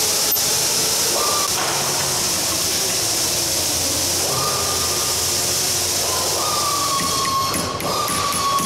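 Background music: a steady hiss with long held high notes that come and go at slightly different pitches.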